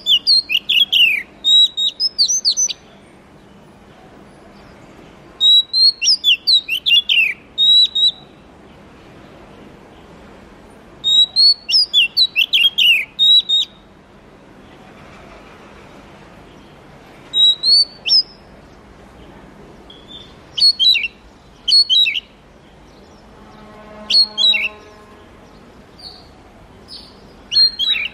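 Oriental magpie-robin singing: phrases of quick, varied whistled notes sliding up and down, each phrase a second or two long, repeated about every three to six seconds with pauses between.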